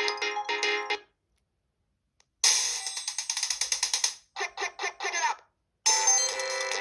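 Built-in ringtones of a Panasonic G60 mobile phone: one tune, several notes at once, ends about a second in; after a silence of over a second a new, bright and busy ringtone starts, broken by brief gaps.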